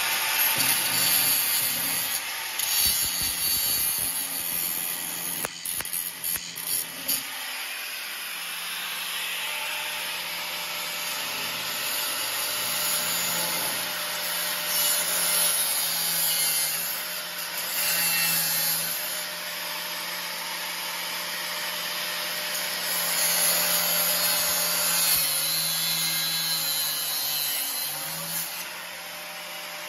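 Angle grinder running and grinding steel, its disc rasping against the metal of a rust-eaten barbecue grill. The grinding comes and goes unevenly over the first several seconds, then runs steadier over a steady motor hum.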